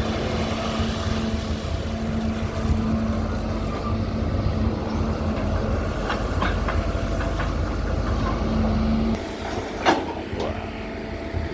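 Excavator's diesel engine running hard with a steady drone. About nine seconds in it drops back, and a sharp knock follows about a second later.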